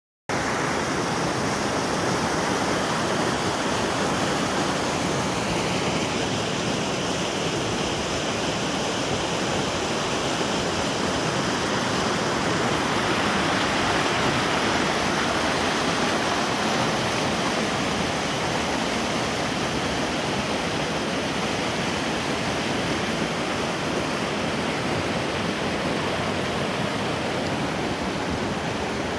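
Waterfall pouring steadily, a loud, even rush of falling water.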